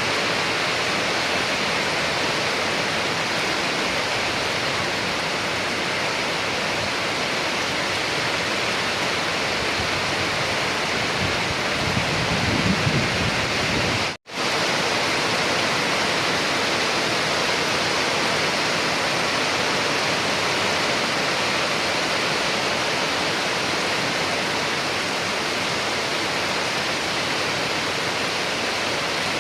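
Steady heavy rain falling, an even hiss, with a brief low rumble swelling about halfway through. The sound cuts out for a split second just after, then the rain resumes unchanged.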